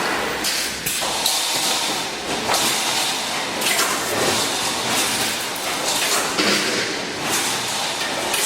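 Fully automatic wire mesh welding machine running, sharp mechanical clacks at irregular intervals of about a second over a steady, hissy industrial noise.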